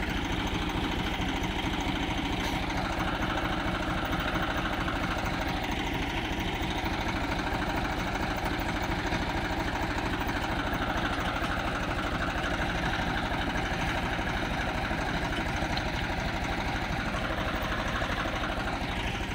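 Swaraj 735FE tractor's three-cylinder diesel engine running steadily with a fast low chug, as the tractor, its rear wheels dug into soft sand, works to pull a loaded sand trailer free.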